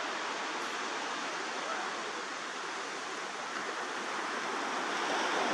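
Steady wash of sea surf, swelling a little near the end.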